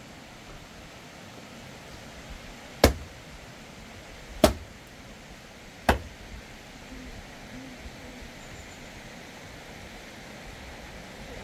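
Three sharp knocks or blows, about a second and a half apart, over a steady background hiss.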